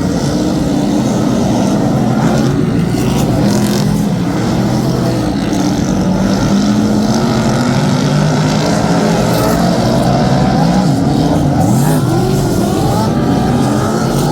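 Several Superstock speedway cars racing together, their V8 engines running loud in a steady overlapping din, with individual engine notes rising and falling as cars accelerate and back off.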